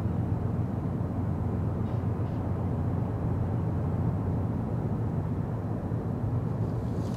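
Distant ro-ro cargo ship's engines under way: a steady low drone carrying across the water.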